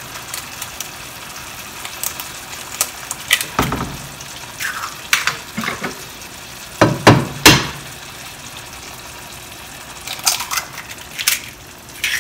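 Tomato sauce simmering and sizzling in a nonstick pan, under a scatter of sharp taps and knocks as eggs are cracked and dropped into it; the loudest pair of knocks comes about seven seconds in.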